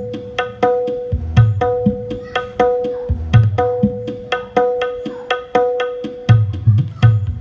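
A small percussion set playing a fast, steady rhythm: a pitched drum rings out on a clear note, alternating with deep bass drum hits.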